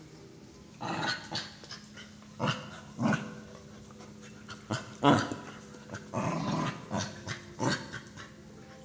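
Several dogs growling in short, irregular bursts as they tussle and bite at each other.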